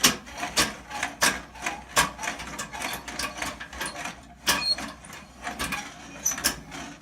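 Toilet auger being handled and set down into a toilet bowl: a run of irregular clicks, knocks and rattles from its metal tube, cable and plastic guard.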